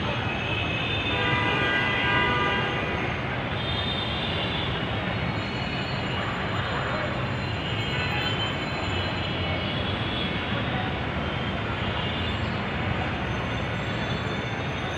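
Steady rumble of vehicle traffic, with a brief steady horn-like tone from about half a second to three seconds in.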